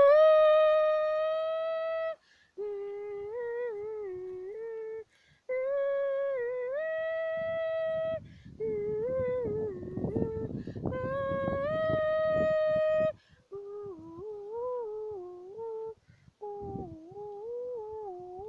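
A woman humming a tune alone, without words or accompaniment, in six phrases of held and gently moving notes with short breaks between them. A rumble of handling noise runs under the middle phrase.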